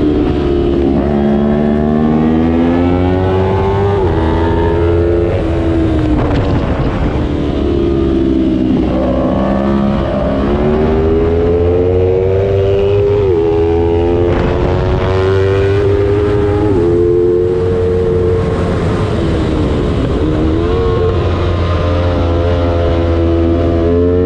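A lightweight 300-class road-racing motorcycle engine running hard, its pitch climbing and falling as it goes up and down through the gears. The pitch drops sharply at a shift about five, ten, thirteen and seventeen seconds in.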